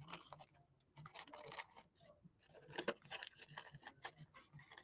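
Faint, irregular snips and rustles of thin decoupage paper being trimmed close around the edge of a wooden tree cutout.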